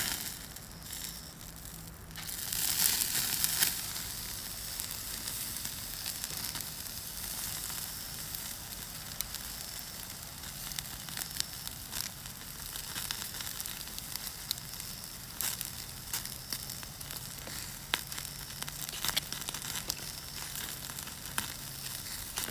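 Angus beef steak sizzling on a grill over a wood fire: a steady hiss with scattered sharp pops, louder for a moment about two and a half seconds in.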